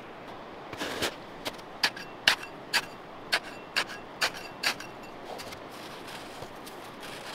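Hatchet chopping into packed snow to cut a groove: about nine sharp strikes, roughly two a second, that stop about five seconds in.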